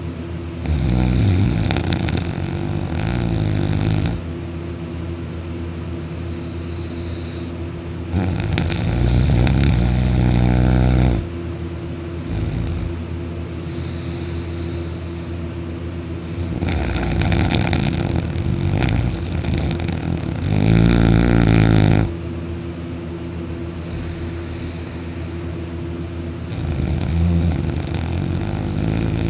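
A deeply asleep person snoring loudly through a wide-open mouth while lying on his back: long rasping snores of two to five seconds come every several seconds, with a steady low hum between them.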